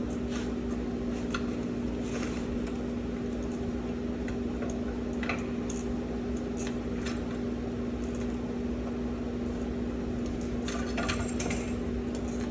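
A steady low hum with scattered light metallic clinks and taps from tools and parts being handled during a truck brake-shoe job.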